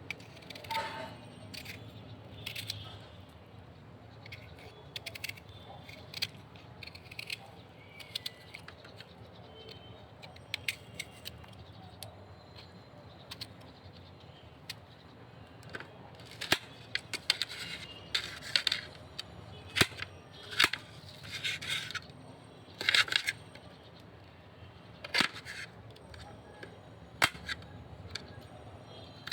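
Irregular sharp clicks and knocks, with short noisy rushes that come thicker and louder in the second half.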